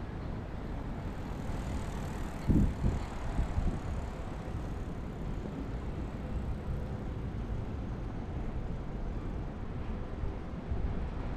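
Steady low rumble of city street traffic, with a few brief louder low thumps about two and a half seconds in.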